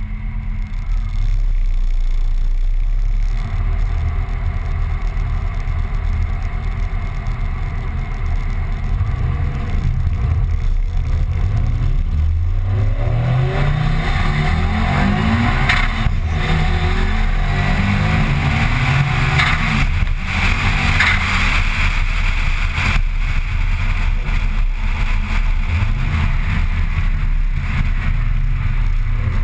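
Car engine heard from inside the cabin, running steadily at first, then accelerating hard about ten seconds in: its pitch climbs in several rising sweeps, broken by gear changes. Tyre and wind noise grow with the speed, and it settles into a steady loud drone near the end.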